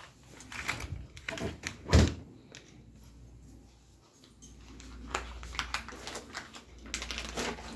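A refrigerator door shut with a thump about two seconds in, among light handling clicks. Near the end come quicker small clicks and rustles as things are handled at the stove.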